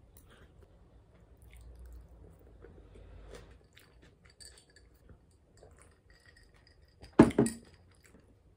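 Quiet chewing and drinking sounds. About seven seconds in comes a loud, sharp knock with a brief rattle as a tall glass of iced drink is set down on the table.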